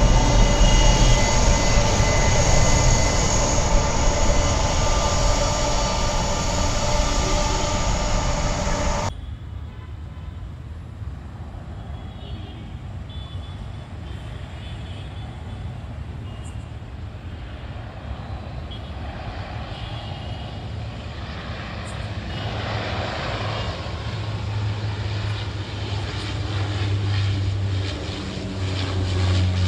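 Loud jet engine noise from a Boeing 747 freighter close by on the runway, cutting off abruptly about nine seconds in. After that, an ATR 72-600 turboprop on approach: a fainter low drone that grows louder over the last several seconds.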